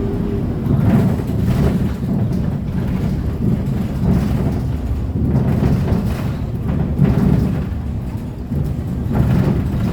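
Cabin noise of a city bus on the move: a steady low rumble of engine and road, broken by irregular thumps and rattles several times.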